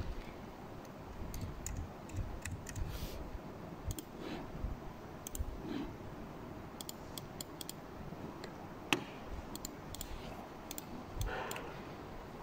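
Computer keyboard and mouse clicking in scattered, irregular taps as figures are keyed in and buttons clicked, with one sharper click about nine seconds in.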